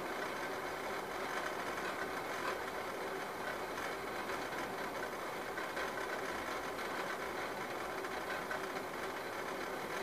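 Saucepan of water heating on a red-hot electric coil burner, giving a steady rushing noise with faint ticks, short of a rolling boil.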